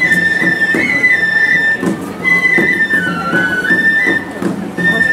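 Minshingaku, the Chinese-style festival music of the Nagasaki Kunchi ship float: a high flute melody holding long notes, dipping lower in the middle and returning, over regular beats about twice a second.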